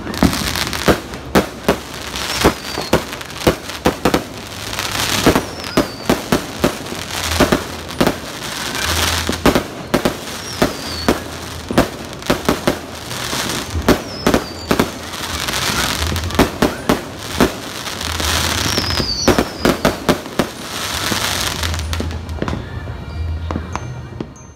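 New Year aerial fireworks going off in a rapid, irregular string of sharp bangs with swells of crackling and a few short whistles. They thin out near the end.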